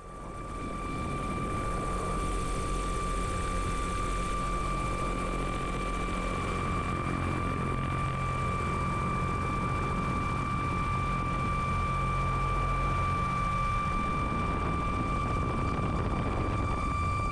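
Electric unmanned rotorcraft running steadily: rotor noise with a constant high motor whine over a low rumble.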